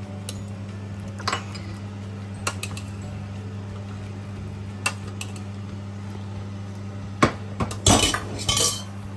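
Soup being served: a spoon clinking and scraping against the cooker and bowl in scattered knocks, with a louder clatter of dishes near the end, over a steady low hum.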